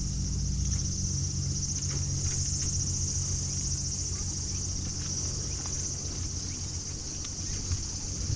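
Steady, high-pitched shrilling of an insect chorus, over the low rumble of bicycle tyres rolling on pavement, with scattered light clicks.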